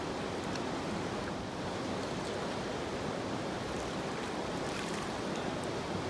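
Steady rush of a fast-flowing creek running over rocks, with a few faint high ticks over it.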